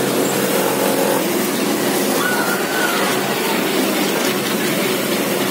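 Steady din of industrial sewing machines running on a garment factory floor, with a brief high whine about two seconds in.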